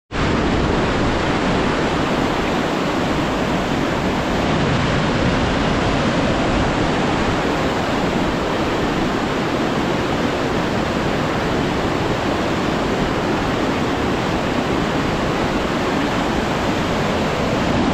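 Water rushing steadily and loudly through a reservoir spillway as the full tank overflows.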